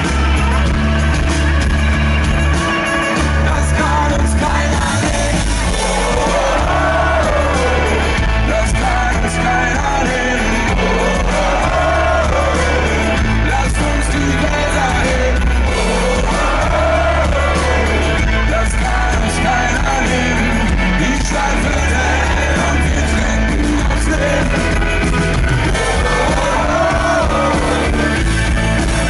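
Live pop-rock band with singing: steady bass and drums under a sung melody line that rises and falls, repeated four times.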